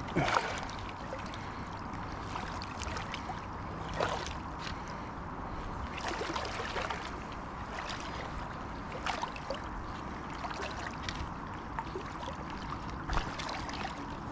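River water lapping and gurgling around a wading angler in a fast, high-running river, with a few short sharp splashes, the loudest right at the start.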